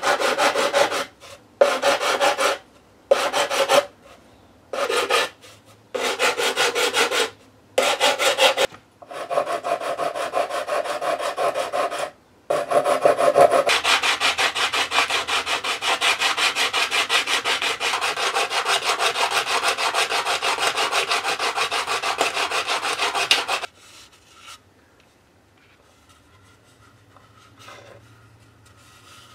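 Hand sanding of a wooden deck edge with sandpaper on a sanding block. It starts as short bursts of strokes, each about a second long, then runs as continuous rapid back-and-forth strokes and stops abruptly about 24 seconds in, leaving faint handling noise.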